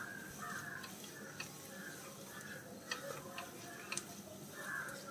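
A wooden spatula stirs and scrapes a thick onion-tomato masala in a nonstick pan, with scattered light ticks and knocks where it hits the pan.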